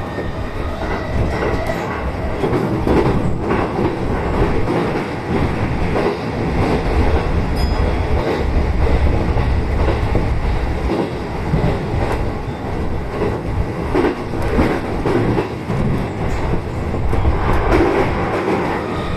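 Commuter electric train running at speed, heard from inside the car: a steady rumble of wheels on rail with some clicking over rail joints.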